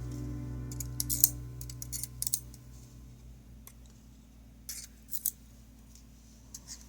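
Small metal clicks and clinks from the pins and springs of a Fab 3 euro cylinder lock, handled one by one as the lock is taken apart. The clicks come in scattered groups over a faint steady hum.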